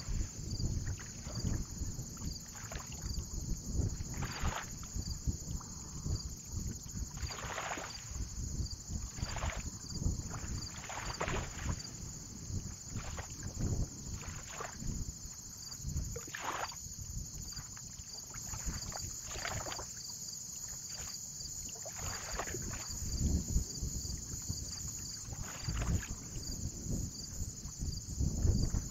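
Water lapping and splashing every second or two, over a low wind rumble on the microphone and a steady high hiss.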